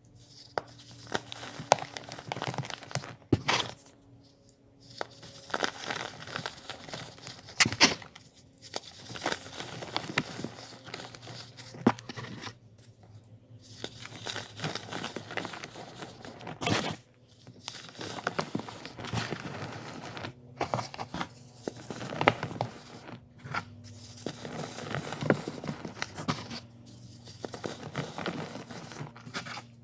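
Hands crushing and crumbling pressed baking soda blocks, an irregular crunchy crackling as the blocks break into fragments and powder, stopping briefly several times between handfuls.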